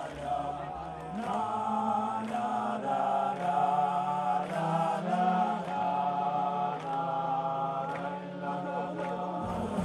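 Slow chant of men's voices in long notes over a low drone.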